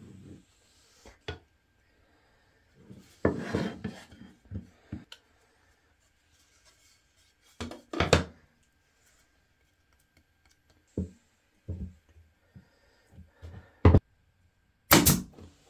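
Woodworking glue-up: wood glue spread and rubbed over thin boards, the boards handled and set down with light knocks. Near the end a pneumatic brad nailer gives two loud sharp reports, the second longer.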